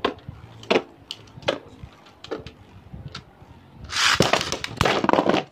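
Beyblade Burst spinning tops in a clear plastic stadium: sharp plastic knocks roughly once a second, then about four seconds in a loud stretch of rapid rattling and scraping as the tops clash.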